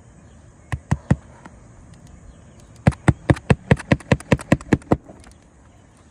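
Hammer driving roofing nails through a shingle into the roof deck: three strikes about a second in, then a quick even run of about eleven strikes at roughly five a second.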